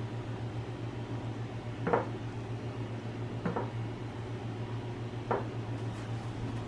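Three soft taps against a bowl as cucumber slices are set into it, the first the loudest, over a steady low hum.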